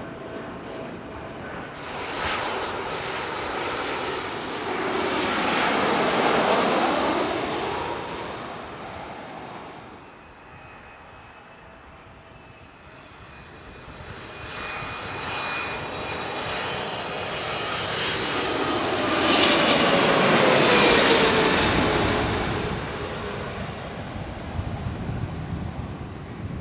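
Two jet airliners passing one after the other. First an Airbus A320-family twin-jet climbing out after takeoff: its engine noise swells, peaks about six seconds in with a whine that drops in pitch, and cuts off suddenly about ten seconds in. Then a second jetliner passes overhead; its noise builds to the loudest point about twenty seconds in, with a whine falling in pitch as it goes by, then fades.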